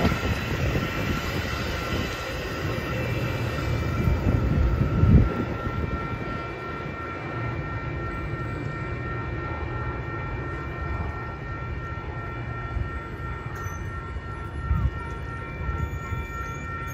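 Train rumbling steadily, with a steady high whine made of several tones held above the rumble, and one louder thump about five seconds in.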